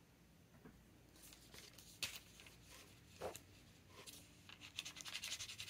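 Faint handling sounds at a desk: scattered light clicks and paper rustling, with a sharper click about two seconds in. Near the end comes a quick run of fine scratching ticks that builds in level.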